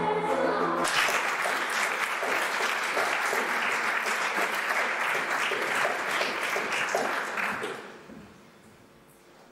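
A sung piece ends on a held chord about a second in, and the audience breaks into applause; the clapping dies away near the end.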